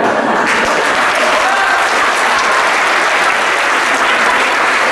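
An audience applauding, the clapping swelling in about half a second in and continuing steadily.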